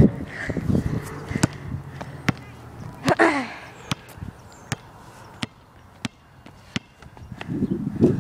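Basketball bouncing on an outdoor asphalt court: a string of sharp single bounces, roughly one every second. A brief falling shout comes about three seconds in, and low voices come near the end.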